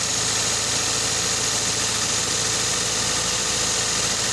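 Toyota Vios engine idling steadily after starting on the first crank: the hard-starting fault is cured.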